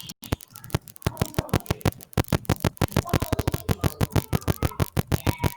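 Background music with a fast, even pulse of sharp clicking beats and faint notes between them.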